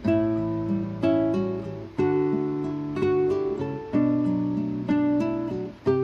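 Background music: a plucked guitar, with a new chord or note group struck about once a second.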